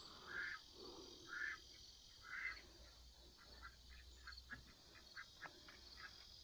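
Faint calls from free-ranging poultry: three short calls about a second apart, then a quicker run of softer short calls.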